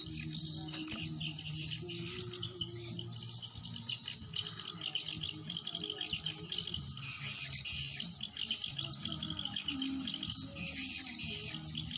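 Edible-nest swiftlets twittering inside a swiftlet house: a dense, continuous, high chirring chatter from many birds at once, the colony's own calls.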